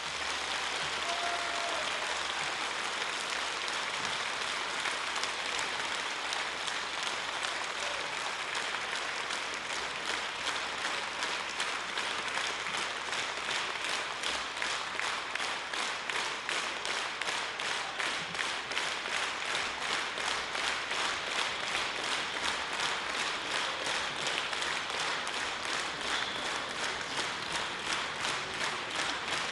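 Audience applauding. Partway through, the applause settles into clapping in unison with an even rhythm.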